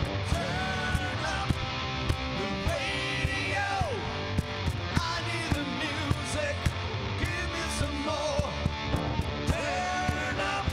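Live hard rock band playing an instrumental passage: lead electric guitar with bending, gliding notes over a steady drum beat and bass.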